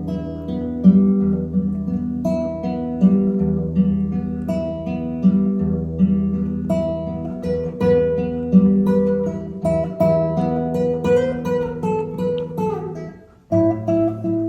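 Acoustic guitar music, plucked notes over strummed chords. It breaks off abruptly about thirteen seconds in, and a new passage starts a moment later.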